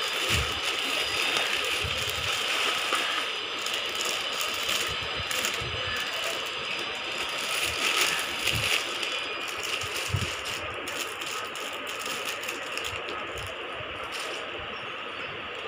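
Plastic packaging crinkling and rustling as hands open a courier mailer bag and handle the clear plastic wrap around a folded saree, with a few short low knocks. The rustling eases somewhat after about ten seconds.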